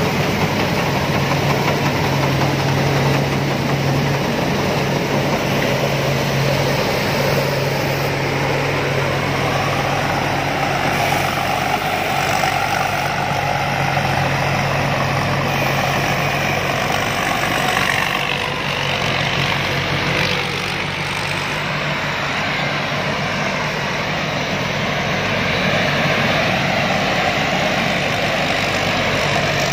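Rice combine harvester's engine running steadily with a continuous hum and dense mechanical noise. It eases slightly about twenty seconds in.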